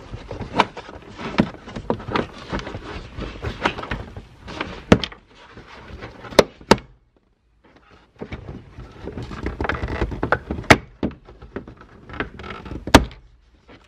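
A car headliner and its overhead plastic trim being handled and worked loose by hand: a busy run of knocks, rubbing and rustling, with several sharp clicks, the loudest near the end, and a brief pause a little past halfway.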